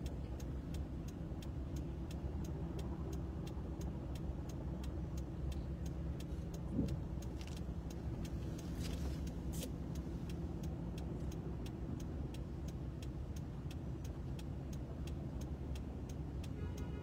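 A car idling and creeping forward in slow traffic, heard from inside the cabin as a steady low rumble. A faint, even ticking about three times a second runs under it.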